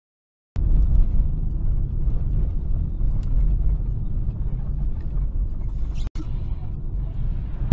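Steady low rumble of a car's engine and tyres heard from inside the cabin through a dash cam, driving at low speed on a wet, slushy road. It starts abruptly about half a second in and cuts out briefly about six seconds in.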